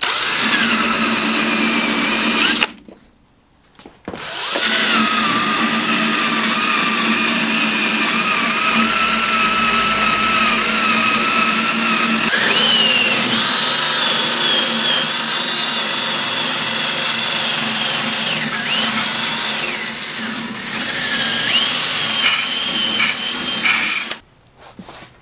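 Ryobi cordless drill spinning a wire wheel brush against the metal brake pedal assembly of a 1969 VW Beetle, stripping it to bare metal. It runs as a steady whine that stops for about two seconds near the start, then runs again until shortly before the end, with the pitch dropping for a while near the end as the wheel bears down.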